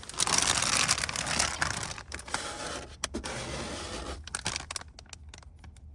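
Irregular scratching and scraping, loudest in the first couple of seconds and trailing off toward the end.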